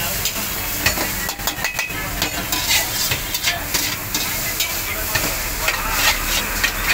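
Metal spatula scraping and clanking against a wok as noodles are stir-fried over a gas flame, with repeated irregular strikes over a steady sizzle.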